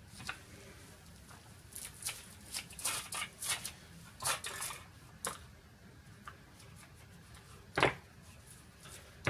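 Foil wrapper of a Kinder Surprise chocolate egg crinkling in a run of short crackles as it is peeled off. Just before the end there is one sharp crack as the chocolate shell is broken open to get at the yellow toy capsule.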